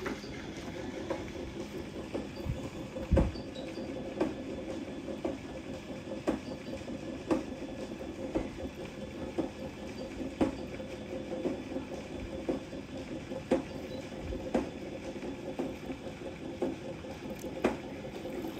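A cast net being drawn in by its hand line through shallow water, lifted out near the end. Under it runs a steady low hum, and a light click comes about once a second.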